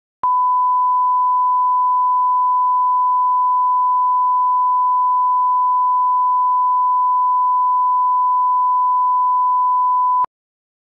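Steady 1 kHz reference tone, the line-up tone that runs under colour bars at the head of a video master for setting audio levels. One unbroken pure beep that starts abruptly and cuts off after about ten seconds.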